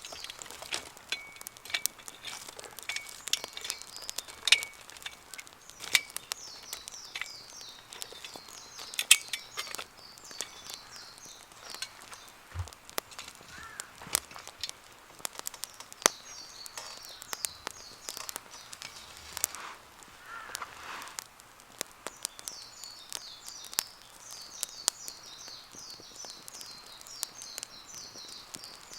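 Wood campfire crackling, with irregular sharp pops and snaps. Birds sing in short runs of quick high chirps several times.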